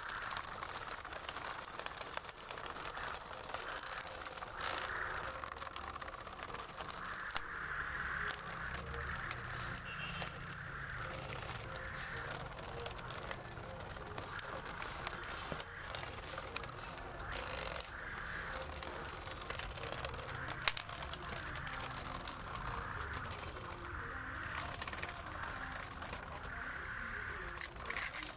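Homemade battery-powered grass cutter, a small motor on a PVC pipe, running with a steady whir and an uneven rattling and crackling as it works through weeds.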